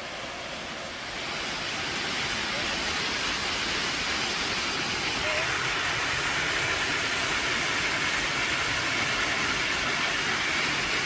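Waterfall rushing steadily. It gets louder about a second in and hissier from about halfway through.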